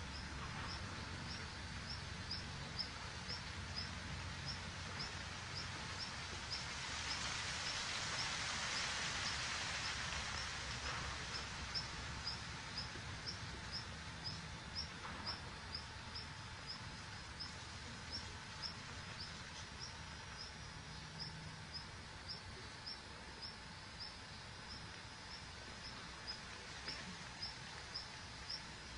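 Outdoor ambience: a small creature's short, high chirp repeating about twice a second throughout, over a steady hiss, with a swell of rustling noise about a third of the way in.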